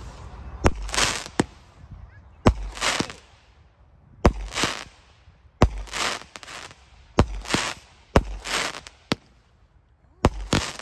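Winda Smoke Dragon, a 16-shot daytime smoke cake, firing shot after shot, each a sharp thump followed by a short hiss. There are about nine shots, roughly one to two seconds apart.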